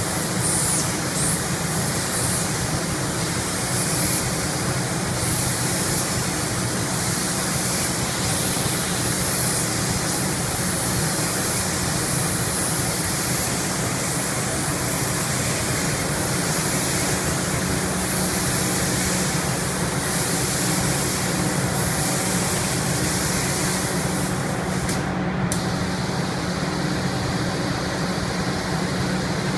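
Compressed-air paint spray gun hissing in repeated passes, swelling and fading about once a second, as colour coat is sprayed onto a car body; the hiss stops near the end. Under it runs a steady machine drone.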